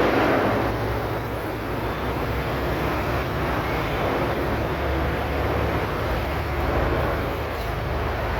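Steady rumble of road traffic, a continuous low noise with no distinct events.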